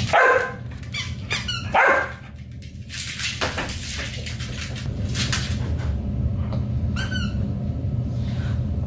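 A dog whining, with two short cries falling in pitch in the first two seconds and fainter squeaks later, over a steady low hum.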